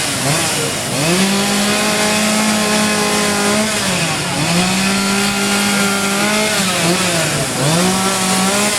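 A chainsaw carver's chainsaw running at high revs. Three times, about half a second in, about four seconds in and near the end, the throttle is let off: the pitch drops and then climbs back as the saw is revved up again.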